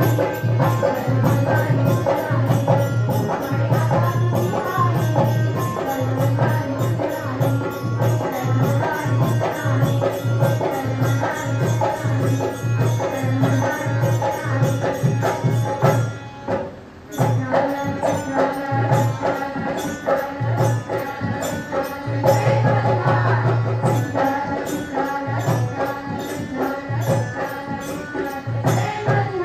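Women's bhajan group singing a devotional song to harmonium, with jingling hand percussion keeping a fast, even beat and a low pulsing beat underneath. The music drops out briefly a little past halfway, then carries on.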